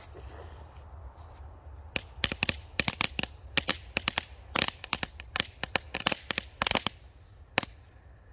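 Crackling firework volcano (ground fountain), the 'Roter Dragon', going off: after about two seconds of near quiet, a rapid, irregular run of sharp crackles, sounding like a campfire, thins out near the end.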